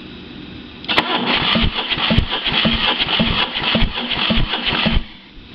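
Mercruiser 3.7 inline four-cylinder marine engine being turned over by its starter for about four seconds without firing, for a compression test: starter motor whine with a regular pulse about twice a second as the cylinders come up on compression. It starts about a second in and cuts off sharply near the end.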